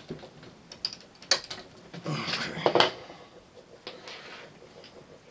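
Hands handling power-supply wires and a plastic connector: a few sharp clicks, the loudest about a second in, and a burst of rustling and clicking around the middle.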